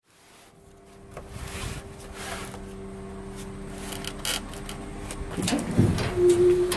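Knocks, clicks and scraping from a cardboard box holding a pair of Subaru cylinder heads being handled and shifted on a plastic pickup bed liner, loudest about six seconds in, over a faint steady hum.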